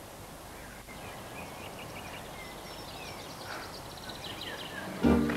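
Birds chirping over a steady outdoor background hiss. Near the end, music with loud sustained keyboard chords comes in suddenly.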